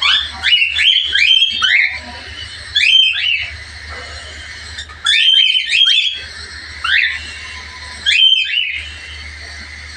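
Cockatiels calling: repeated short, rising whistled chirps in bunches, thickest in the first two seconds and again around five to six and eight seconds, over a faint low steady hum.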